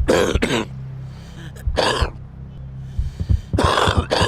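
A person coughing hard in three bouts, a smoker's cough: two coughs, then one about two seconds in, then two more near the end. A steady low drone runs underneath.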